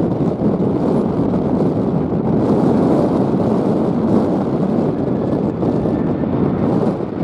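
Strong gusting wind buffeting the microphone: a loud, steady rumbling roar with no clear tone in it.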